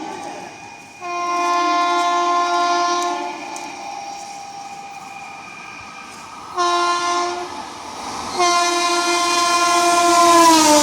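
WAP-7 electric locomotive's horn sounding three blasts: a long one, a short one about six and a half seconds in, then a long one from about eight seconds in that drops in pitch near the end. Train running noise underneath.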